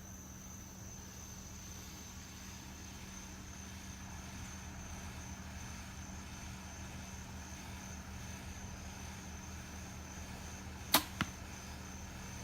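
A single bow shot about 11 seconds in: a sharp snap as the string is released, then a second crack about a quarter second later as the arrow hits the target. Behind it is a faint, steady outdoor background with a continuous high insect tone.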